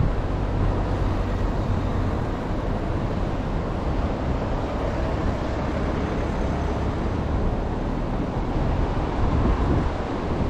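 Steady outdoor ambience with a constant low rumble and no single event standing out.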